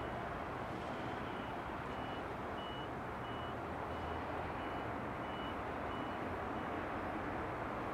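Diesel railcar's engine idling steadily while it stands at the platform, under a high electronic beep repeating about one and a half times a second that fades out near the end.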